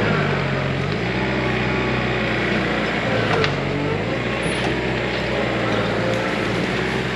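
John Deere 110 tractor-loader-backhoe's diesel engine running steadily at work, its note shifting now and then as it takes load, with one sharp crack a little over three seconds in.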